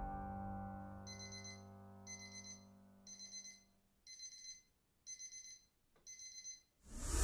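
A music track dies away, and then a faint electronic alarm rings in six short trilling bursts, about one a second. Loud music cuts back in right at the end.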